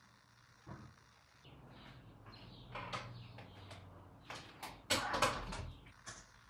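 Handling noises: clicks, knocks and rustling of objects being moved about, with the loudest cluster of knocks and rustling about five seconds in.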